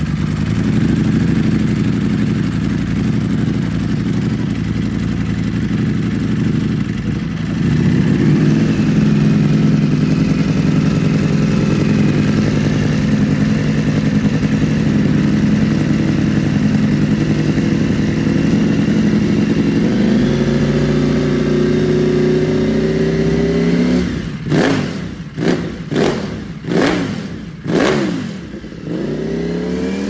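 Ducati Panigale V4's V4 engine, on an aftermarket exhaust, idling steadily, its idle creeping up a little late on. Near the end it takes about five quick throttle blips, each rev rising and falling sharply, then settles back to idle.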